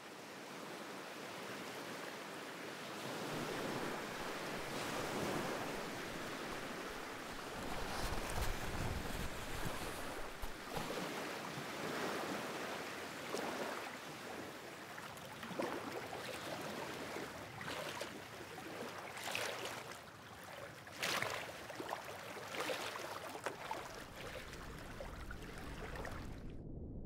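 Sea waves washing and surging, building up over the first few seconds, with sharper splashing washes every second or two in the second half. Near the end the sound turns suddenly muffled.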